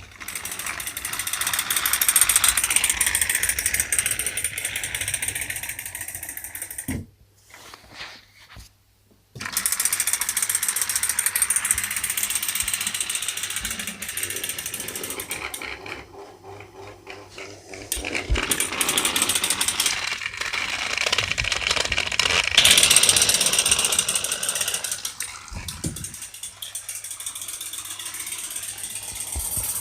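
Battery-powered Trackmaster toy train engines running on plastic track: the steady whirring and rattling of their small geared motors, with a short near-silent break about seven seconds in.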